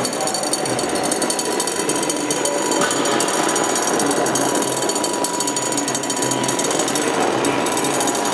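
Oscillator-driven electronic sound of a sound-art installation: a dense, rapid clicking and crackling texture over a steady thin tone, with a low hum that comes and goes.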